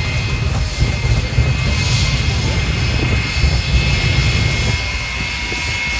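Jet engines of a jet-powered fire truck running on afterburner, throwing out flames: a heavy low rumble under a steady high whine. The rumble eases off about five seconds in.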